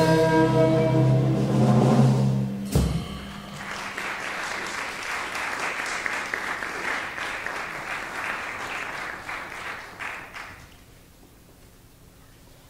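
A jazz combo holds its final chord and cuts off with a sharp hit about three seconds in. Audience applause follows for about seven seconds and fades out near the end.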